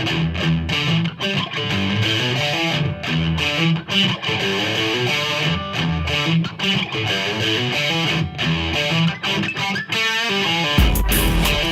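Background music: a plucked electric guitar riff over a bass line, with heavier distorted guitar coming in near the end.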